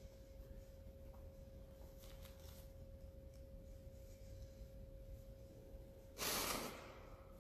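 Quiet room tone with a faint steady high hum, broken about six seconds in by one short loud rushing noise lasting about half a second.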